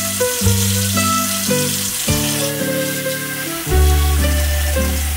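Background music of held notes changing every half second or so, over a steady hiss of tap water pouring into a bowl of dandelion petals as a hand stirs them about.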